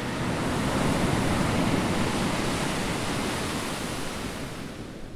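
Small waves breaking and washing up the shore in a steady surf hiss, gradually fading out toward the end.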